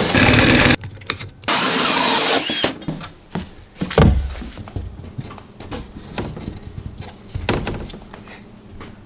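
Two short bursts of a power tool running at full speed, the first cut off abruptly, then scattered knocks and handling thumps on the panels, with one heavier thump about four seconds in.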